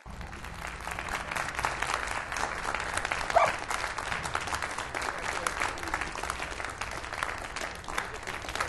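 Steady applause: a dense, even patter of clapping, with a short rising squeak about three and a half seconds in.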